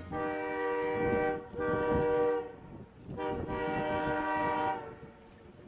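Multi-chime air horn of a snowplow train's locomotive sounding three blasts, the first two close together, then a short pause before the third, over a low rumble of the train.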